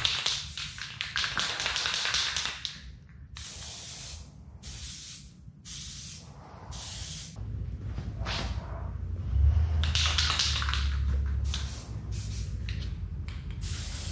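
Aerosol spray-paint can spraying black paint in a series of hissing bursts, each from under a second to a few seconds long, with short pauses between; a low rumble sits under the bursts in the middle.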